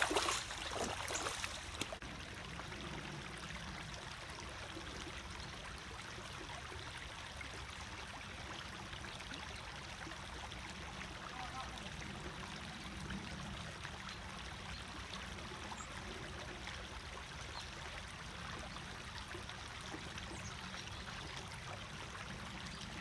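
Small creek running: a steady trickle of flowing water.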